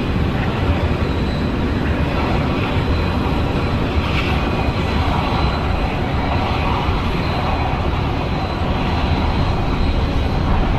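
Airbus A319 jet airliner's engines running, a steady rushing noise with a deep low rumble as the aircraft arrives.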